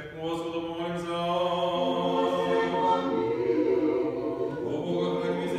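Orthodox church choir singing liturgical chant a cappella, several voices holding long notes.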